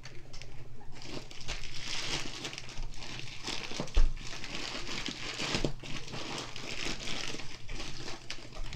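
Packaging crinkling and rustling as it is handled and opened, with many small crackles and one dull thump about four seconds in.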